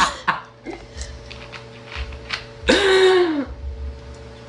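A girl's loud belch about three seconds in, lasting under a second, its pitch sliding downward.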